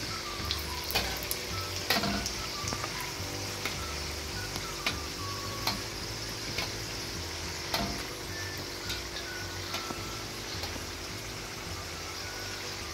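Namak pare (strips of maida dough) deep-frying in hot oil in a wok on a low flame: a steady sizzle with many small crackles, and a metal slotted spoon stirring and now and then clinking against the pan.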